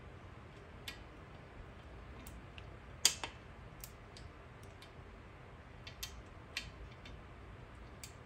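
Sharp metallic clicks of a torque wrench and socket tightening bolts on a Kawasaki KFX400 cylinder head beside the cam sprockets, the bolts being brought up to torque in steps. About half a dozen separate clicks, the loudest about three seconds in, over a low steady hum.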